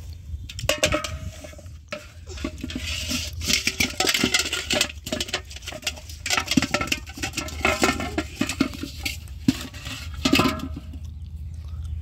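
Thin aluminium cooking pot clanking and rattling in irregular knocks, some briefly ringing, as it is handled and set down with a freshly caught fish inside.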